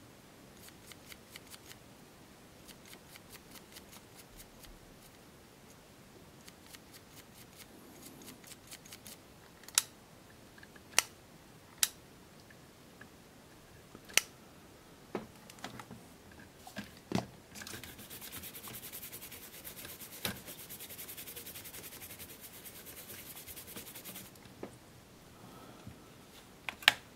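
Glass-fibre cleaning pen scratching in quick short strokes across the oxidised leads of a component on a circuit board. In the second half come a series of sharp clicks and a steady hiss lasting several seconds, then clicks near the end as AA batteries go into the battery compartment.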